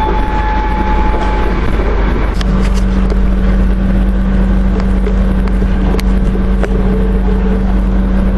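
Passenger train running, heard from inside the carriage: a steady rumble, with a low drone that comes in about two and a half seconds in and a few sharp clicks.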